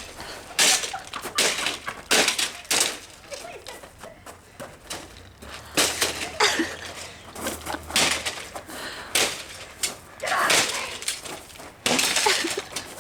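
A Wolfgang Puck coffee maker being smashed with a garden tool: repeated hard, irregular blows, with the machine cracking and breaking apart, and a short lull near the middle.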